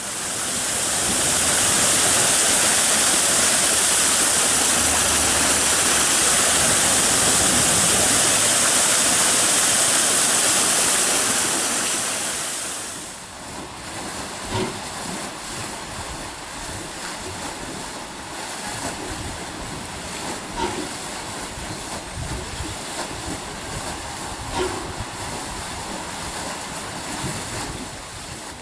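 A loud steady hiss for the first dozen or so seconds, then water gushing and splashing up out of an open pipe into a stone-lined channel, a steady rushing wash with a few sharper splashes.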